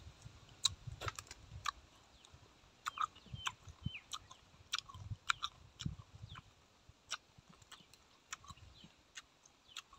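Close-up chewing, with wet mouth clicks and smacks coming at irregular moments and soft low thuds of the jaw working.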